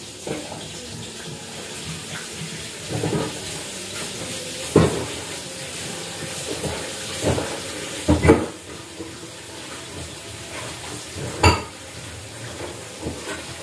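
Tap water running steadily while water spinach is washed in a plastic basin, with about half a dozen sharp knocks of the basin and dishes being handled.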